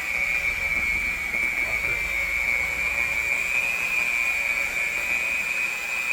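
Electric hand mixer running steadily with a high, even motor whine as its beaters work a bowl of cookie dough.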